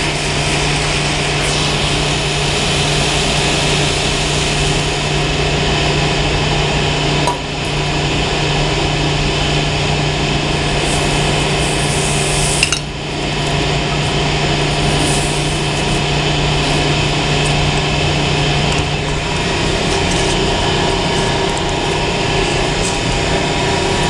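Steady hiss of a MAP-gas hand torch heating a copper tee for soldering, over the constant noise of running boiler-room machinery; a low hum cuts out about 19 seconds in.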